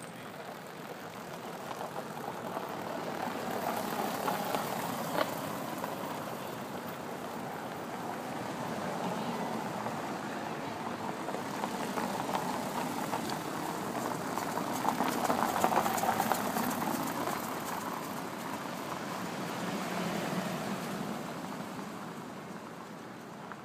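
Car in motion: a steady rumble of tyres and engine that swells and fades several times.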